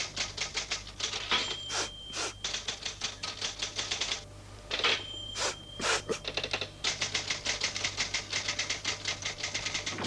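Typewriter keys clattering in fast, even runs, twice broken by a short ringing tone and a few heavier strokes.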